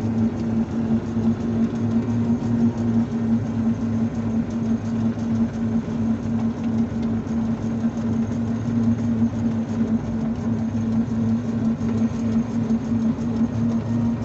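Small electric vehicle's motor humming at one steady pitch while moving along a street, over a rough rumble of road and wind noise.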